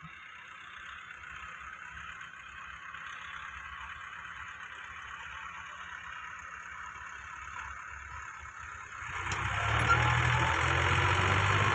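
Massey Ferguson 260 tractor's three-cylinder diesel engine hauling a soil-loaded trolley. It runs fairly quietly at first, then about nine seconds in it revs up sharply and grows much louder as it works under the load.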